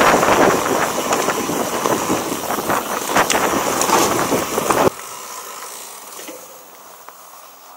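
Mountain bike rattling and knocking down a rough, rocky dirt trail, with wind buffeting the chest-mounted camera's microphone. About five seconds in the sound drops suddenly to a much quieter, smoother ride.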